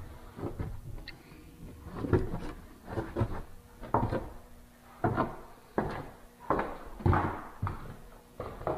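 Footsteps on bare wooden boards, a heavy step about every second.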